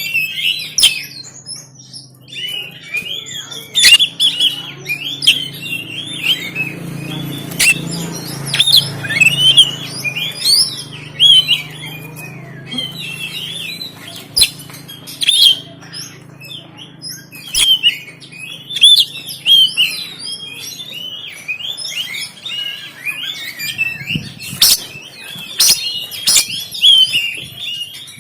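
Oriental magpie-robin (kacer) singing continuously, a rapid run of varied twittering chirps and whistles broken by sharp, harsh notes.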